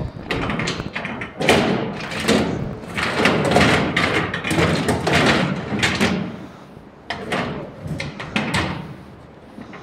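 Steel hydraulic motorcycle jack being shoved and repositioned under a motorcycle, with metal clunks, knocks and scraping. The noise is heaviest over the first six seconds or so, then drops to lighter scattered clicks as the jack settles into place.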